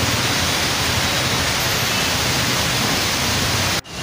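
Heavy rain and floodwater rushing: a loud, steady hiss with no break except a momentary cut near the end.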